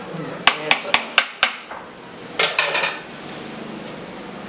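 Slotted metal spatula clinking against a large metal cooking pot: five quick taps, then a second group of ringing clanks near the end, as stirring of the coloured biryani rice finishes.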